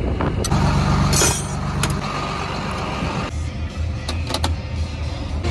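John Deere tractor engine running steadily, heard from inside the cab, with a few sharp clicks as the console levers are worked.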